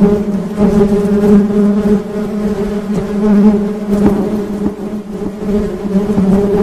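Honey bees buzzing: a steady, low hum at a constant pitch that swells and ebbs in loudness.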